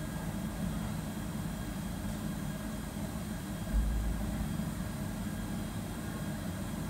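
Steady low hum of kitchen machinery, with a brief low thud about four seconds in.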